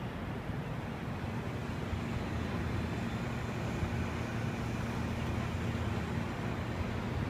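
Steady low rumble of city traffic from the streets far below, an even hum with no distinct events.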